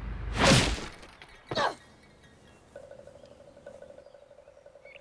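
A loud crash of something smashing about half a second in, followed by a shorter falling sweep about a second later. A faint steady pulsing tone begins near the middle.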